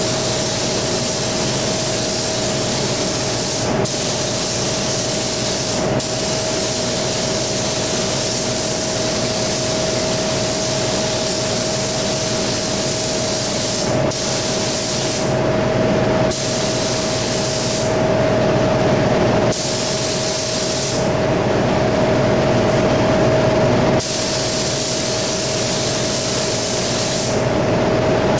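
GTI gravity-feed paint spray gun with a 1.5 tip hissing as paint is sprayed, its high hiss cutting out several times as the trigger is released and pulled again. Underneath runs the steady hum and tone of a loud paint-booth exhaust fan.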